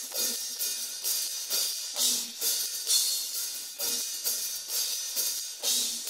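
Isolated cymbals track of a rock drum kit: cymbals struck about twice a second in a steady rhythm, each ringing on into the next, with almost no low end.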